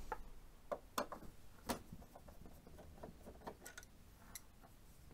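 Faint, irregular clicks and ticks of a small screwdriver turning out a screw from the plastic side panel of an Epson XP-645 inkjet printer.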